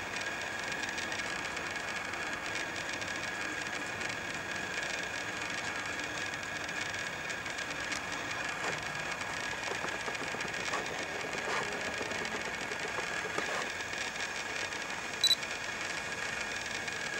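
Steady background hiss with constant high-pitched tones, a few faint scratchy sounds in the middle, and one short, sharp high beep about fifteen seconds in, the loudest sound.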